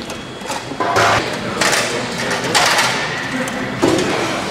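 Several short bursts of metal clatter and scraping, about a second apart, as the metal case of a bomb computer unit and its fittings are handled.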